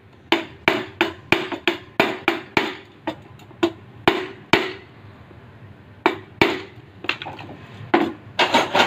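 Hammer blows on metal with a short ring, driving wheel bearings into a motorbike wheel hub. The blows come quickly, about three a second, for the first three seconds. Then they turn slower and more spaced, with a quick cluster of a few near the end.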